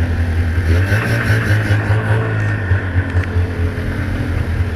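A 1997 Lynx G-type Enduro 500 snowmobile's Rotax two-stroke engine running at low revs with reverse engaged to back the sled up, the revs rising briefly about a second in and easing back.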